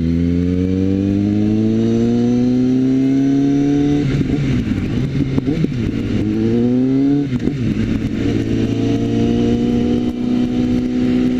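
Suzuki GSX650F's inline-four engine pulling under acceleration, its note climbing steadily, dropping sharply about four seconds in and again about seven seconds in as the motorcycle shifts up, then holding a steady pitch while cruising.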